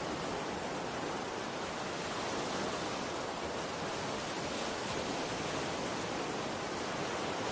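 Steady, even rushing noise with no pitch, rhythm or separate events.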